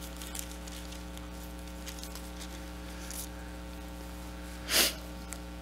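Steady electrical mains hum on the recording, with a few faint clicks and one short burst of noise about five seconds in.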